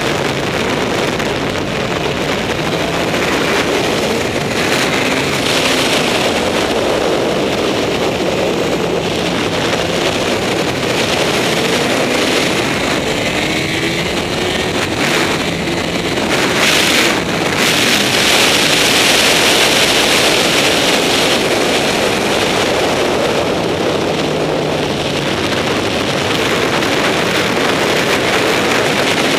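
Honda CBR954RR's inline-four sportbike engine pulling hard at high revs, with faint rising pitch as it accelerates. It is largely buried under heavy wind noise on the microphone, which is loudest a little past halfway.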